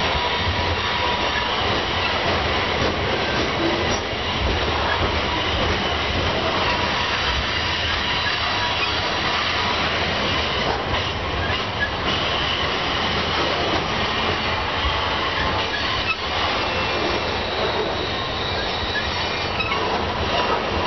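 Loaded covered grain hopper cars of a long freight train rolling steadily past on a curve: a continuous rumble and rattle of the cars, with a thin steady squeal from the wheels against the rail on the curve and a few clicks over the rail joints.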